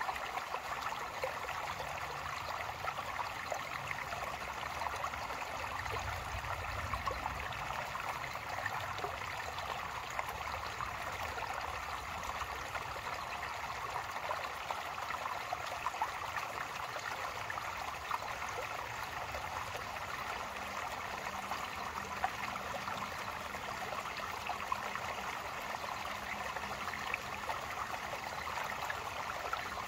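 Shallow creek trickling steadily over flat stones.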